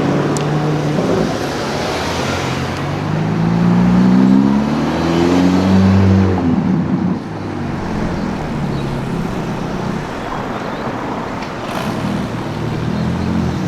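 A car engine accelerating: its note climbs steadily for about three seconds, then the pitch drops sharply about halfway through, and it settles to a lower, steadier engine sound over street traffic.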